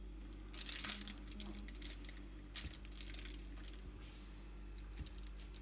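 Knife cutting a rolled pastry log on parchment paper: crinkling and crackling of the paper and pastry in short bursts, loudest about a second in, with a few light taps of the blade on the surface.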